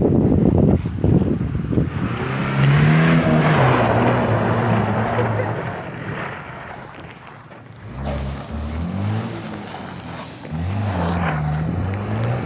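Off-road vehicle engine revving, its pitch rising and falling in two spells, with wind buffeting the microphone for the first couple of seconds.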